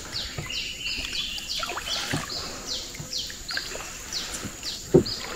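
Wildlife calling in swamp forest: a steady string of short, high, downward-sliding chirps, about three a second. A single sharp knock sounds near the end.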